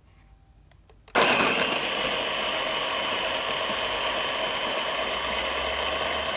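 Wilfa Svart Aroma conical-burr coffee grinder switched on about a second in, its 130-watt motor running steadily while grinding coffee beans.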